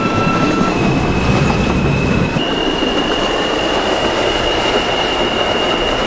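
New York subway car running, slowing as it approaches a station. Its rumble on the track eases about two seconds in, and a steady electric whine from the propulsion steps up in pitch, then holds.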